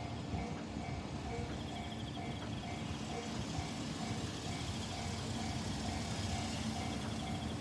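Japanese railroad crossing alarm (fumikiri) ringing its repeating electronic ding, about two a second, with a rushing noise building from about three seconds in.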